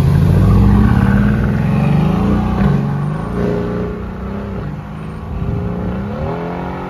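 Tuned Audi RS3's 2.5-litre turbocharged five-cylinder engine accelerating away, its pitch stepping and gliding as it revs. Loudest in the first second or so, it fades through the middle, then rises in pitch again near the end.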